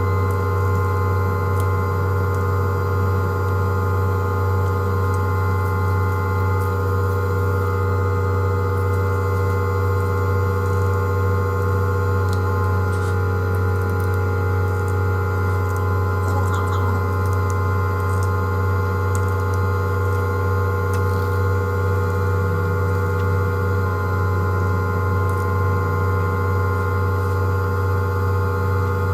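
Steady electrical hum: a strong low drone with several constant higher tones over it, unchanging throughout, with a few faint ticks about two-thirds of the way in.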